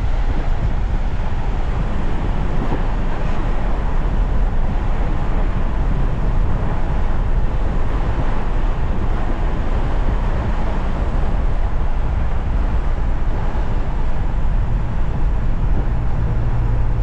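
Steady wind and road noise from a moving vehicle at highway speed: an even rushing that is heaviest in the low end.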